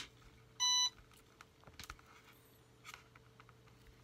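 A single short electronic beep from the RC jet's onboard electronics as its red T-connector power plug is pushed together and makes contact, followed by a few faint handling clicks.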